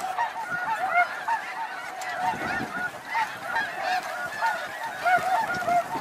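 Flock of snow geese calling: a steady chorus of many overlapping short, high honks.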